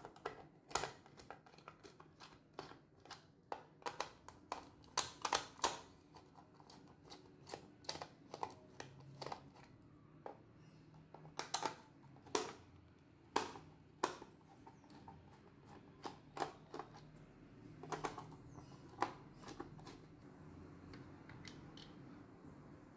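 Irregular sharp clicks and taps of a small screwdriver and hands working on a wall clock's plastic back housing, unscrewing it and handling the parts as it is taken apart.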